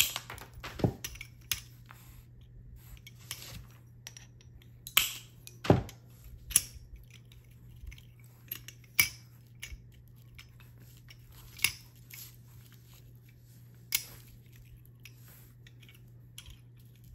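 Cut glass pieces clicking and tapping against each other and the work surface as they are moved and fitted together: about a dozen sharp ticks at irregular intervals, the loudest around a third of the way in. A low steady hum runs underneath.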